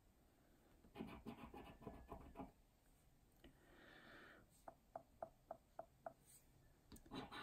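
A two-pound coin scraping the latex coating off a scratchcard in short, quiet strokes. Near the end comes a quick run of about six short, higher-pitched scrapes.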